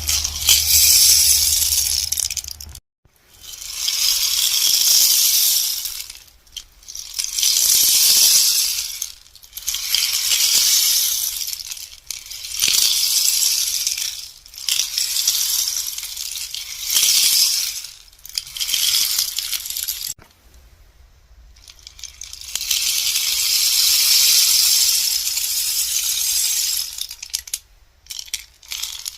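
Bamboo rainstick tipped over and over, each turn sending a cascade of pellets trickling down inside it in a rain-like rattling hiss that swells and fades over two to three seconds. There are about nine such cascades, with a longer pause about two-thirds of the way through.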